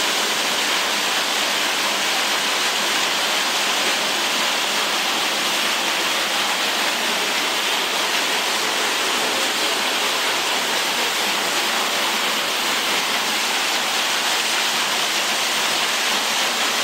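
Spouting Rock waterfall pouring steadily: an even, unbroken rush of falling water, strongest in the upper range, with little deep rumble.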